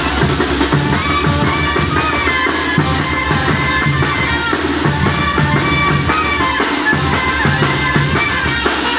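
Loud dance music with a drum kit and a repeating bass beat under a melodic line, played over a mobile disco sound system.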